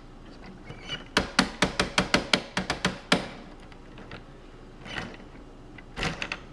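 Quick run of about a dozen light plastic clicks and knocks in two seconds from a VEX Robotics plastic ball machine as its hexagonal ball wheel and balls are handled. A few more clicks come near the end.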